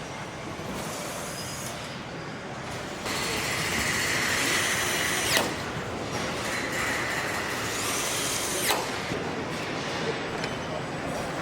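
Assembly-line power wrench (nut runner) running twice for about two seconds each time, a hissing whine that ends in a sharp click as each fastener is driven home, over steady factory-hall noise.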